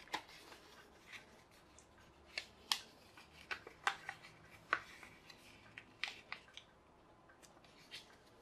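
A sheet of paper being folded and creased by hand: irregular short crackles and rustles, thinning out after about six and a half seconds.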